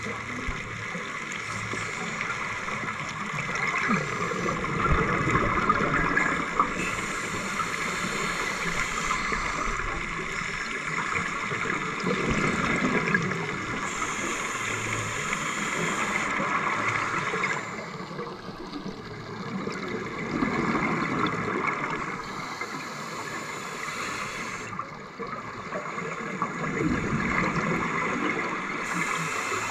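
Exhaled bubbles from scuba divers' regulators rising through the water, in surges every several seconds over a steady underwater hiss.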